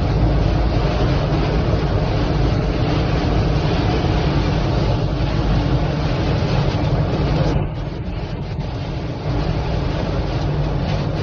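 Strong storm wind roaring and buffeting the microphone with a heavy low rumble. It eases slightly for a moment past the middle, then picks up again.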